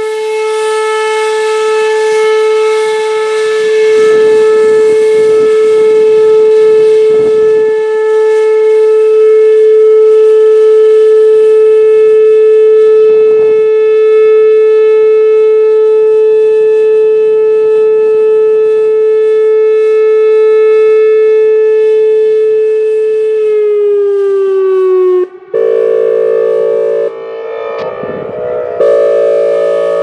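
Whelen Vortex R4 electronic warning siren sounding its steady Alert tone, one held pitch that sags slightly and cuts off about 25 seconds in. After a brief break it switches to its Air Horn signal, a dense multi-tone chord that dips and swells in loudness.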